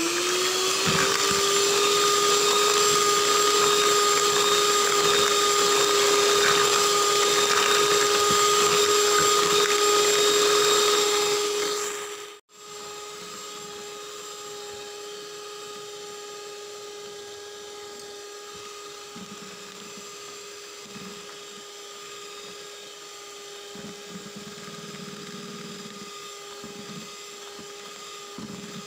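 Miyako electric hand mixer running at high speed, a steady motor whine with the beaters whisking eggs, sugar and SP emulsifier into a thick, pale sponge-cake batter. About twelve seconds in the sound breaks off for an instant and comes back much quieter at the same pitch.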